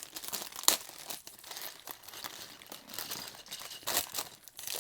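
Plastic Lego parts bag being torn open and crinkled. It crackles irregularly, with sharp loud rips about a second in and again near the end.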